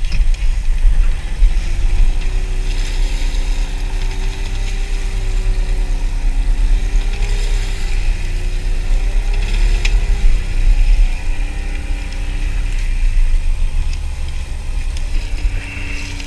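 Small fishing boat's engine running steadily under a heavy low rumble, with a tone that drifts slowly up and down.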